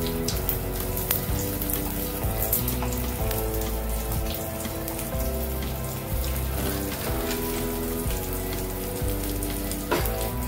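Background music of held chords changing about every second, over the crackling sizzle of papad rolls shallow-frying in a little oil in a pan.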